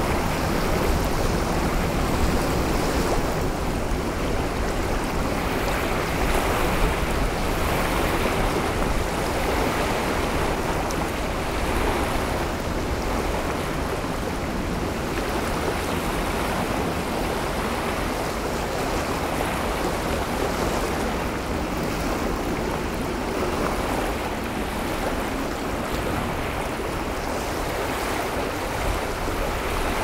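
Heavy wind over a lake shore, with small choppy waves lapping against the stones at the water's edge. The noise is steady and swells a little, with a low rumble of wind on the recorder's built-in microphones.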